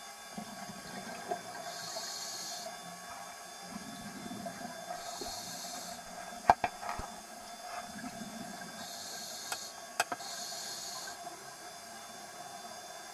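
Scuba diver breathing through a regulator underwater: a hiss on each inhale and a low rush of bubbles on each exhale, about three breaths. Sharp clicks come about six and a half and ten seconds in.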